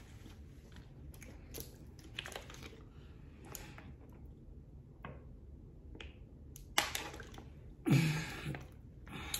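Small mouth and napkin sounds, then drinking from a thin plastic water bottle, the bottle crinkling and its cap clicking as it is handled; the crinkles near the end are the loudest.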